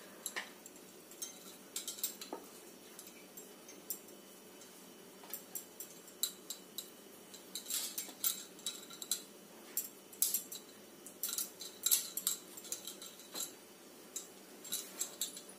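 Scattered light clinks and taps as peeled banana pieces are put into a stainless steel mixer-grinder jar, with bangles clinking on the wrist; the clinks come most thickly in the middle stretch.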